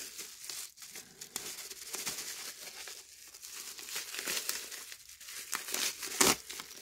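Plastic bubble-wrap pouch crinkling and crackling as a wristwatch is worked out of it by hand, with the loudest crackles a little after six seconds in.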